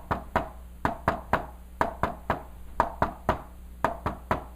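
Knocks tapped by hand in a quick three-beat rhythm, about one group of three a second, imitating an S3 gallop: a third heart sound following S1 and S2.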